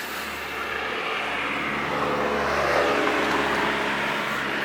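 Vehicle noise: a steady rush that slowly grows louder, with a low hum underneath that stops about four seconds in.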